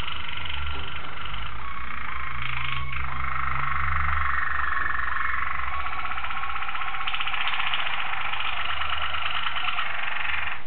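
Waterslager song canaries singing a continuous song of rapid trills, the song changing its tour about three seconds in and again about seven seconds in.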